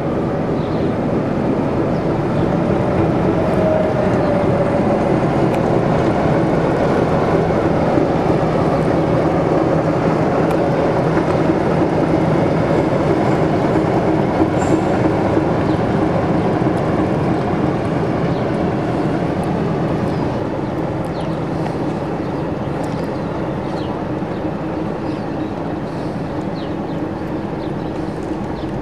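BDZ class 55 diesel-hydraulic shunting locomotive's engine running steadily as the locomotive moves along the station track, getting a little quieter in the last third.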